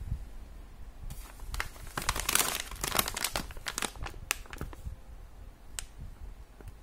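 Clear plastic candy bag crinkling and crackling as it is handled and turned over in the hands, busiest about two to three and a half seconds in, with a few last crackles near five seconds.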